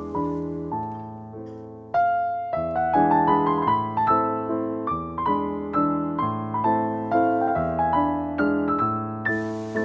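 Background piano music: a gentle piece of struck chords and melody notes, each fading before the next in a steady pulse.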